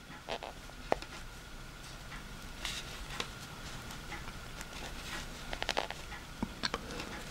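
Circular knitting needles clicking and ticking lightly at irregular intervals as stitches are knit, with soft handling rustles of the yarn and work. A faint steady tone runs underneath.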